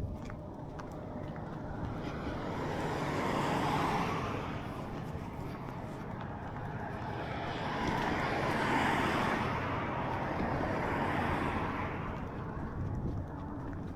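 Road traffic: motor vehicles passing one after another, the tyre and engine noise swelling and fading twice, loudest about four seconds in and again about nine seconds in.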